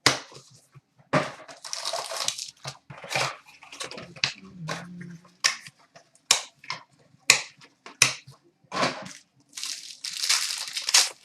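A sealed trading-card box being opened and its contents handled: packaging torn and crinkled, with a string of sharp clicks and rustles.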